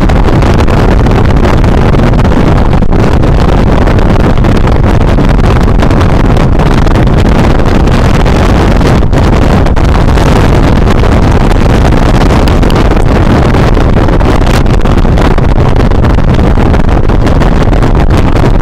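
Loud, steady wind rush over a helmet-mounted camera's microphone on a motorcycle at highway speed, with the bike's running and road noise blended underneath.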